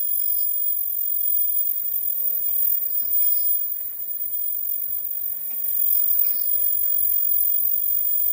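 Automatic loop-headband face mask making machine running: a steady high-pitched whine and hiss, with a short sound repeating about every three seconds.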